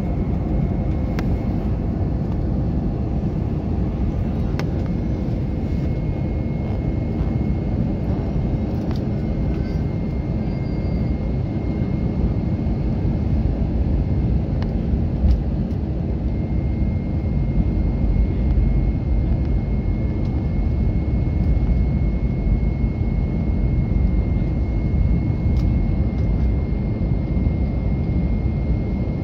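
Passenger airliner cabin noise on the approach to landing: a steady roar of engines and rushing air heard from inside the cabin, with a thin, steady high whine running through it.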